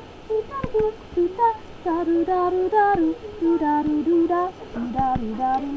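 A high voice singing a melody in steady, stepped notes, with a few sharp clicks scattered through it.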